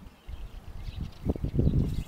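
Wind buffeting the microphone in uneven gusts that start about a quarter second in and grow louder, with faint bird chirps in the background.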